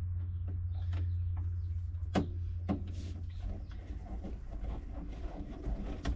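Light clicks and taps of a screw and screwdriver being worked into a van's dashboard heater control panel, the two sharpest a little after two seconds in, over a steady low hum.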